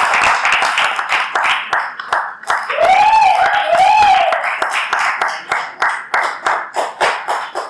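Audience applauding a theatre curtain call: dense clapping that thins into scattered single claps and fades near the end. About three seconds in, one person cheers with two rising-and-falling whoops.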